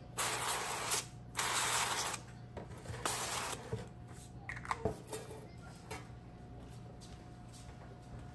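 Aerosol cooking-oil spray can hissing in three short bursts, followed by a few light knocks.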